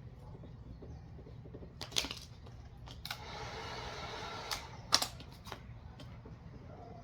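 Vinyl wrap film being worked by hand: sharp clicks and snaps, the loudest about five seconds in, and a scrape lasting about a second and a half near the middle, over a steady low hum.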